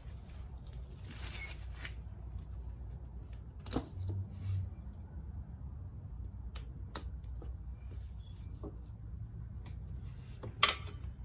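Small handling and tool noises over a low steady hum: faint rustles and knocks, with a few sharp clicks and the loudest click near the end.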